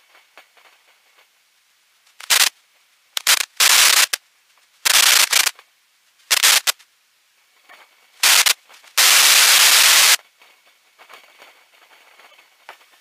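Harsh bursts of static on the biplane's cockpit intercom audio, cutting in and out abruptly at irregular intervals. There are about seven loud, clipped bursts, the longest lasting about a second near the end, with near quiet between them.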